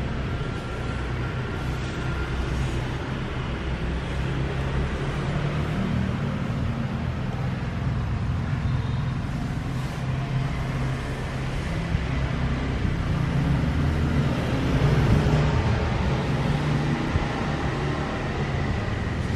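Steady low engine rumble of background road traffic, with no distinct events standing out.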